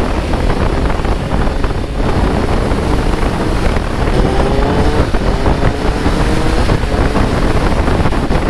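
Kawasaki Z900 inline-four engine pulling under acceleration, its pitch climbing steadily about halfway through, under heavy wind rush on the helmet microphone at road speed.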